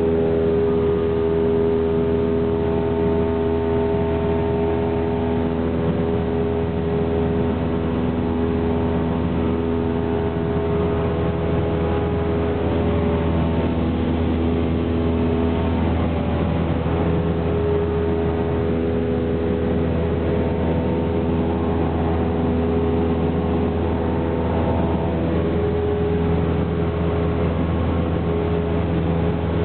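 Single-engine piston light aircraft in flight, heard from inside the cabin: the engine and propeller give a loud, steady drone with a layered hum, its pitch shifting only slightly now and then.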